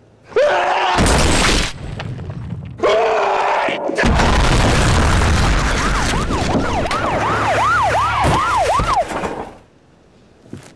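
A short yell and a loud crash, a second yell, then a long loud crashing din with a rapidly rising-and-falling wail over it, about two to three swoops a second; it dies away near the end.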